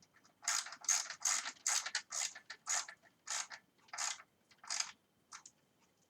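Ratchet wrench turning the stem's Torx clamp bolts snug: a run of short ratcheting rasps on the back-swings, about two strokes a second, coming further apart near the end.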